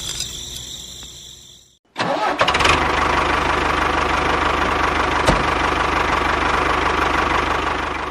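Insect chirping fades out. After a brief silence about two seconds in, a steady engine-like running sound starts abruptly as the miniature model tractor drives off pulling its trailer. One sharp knock comes about three seconds later.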